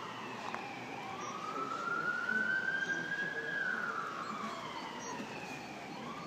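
A siren wailing in a slow rise and fall: it drops to its low note, climbs for about two and a half seconds, falls again, and starts to climb once more near the end.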